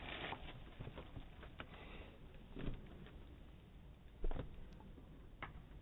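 A few faint, scattered taps and knocks over low, steady background noise, with one sharper knock about four seconds in.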